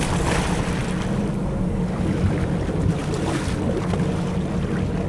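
Sportfishing boat's engines running steadily, with wind buffeting the microphone and the sea washing alongside; two short gusts of hiss come through, one near the start and one about three seconds in.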